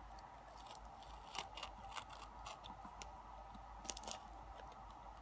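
Knife cutting at the packing tape on a taped-up parcel: soft scrapes with a few short, sharp ticks.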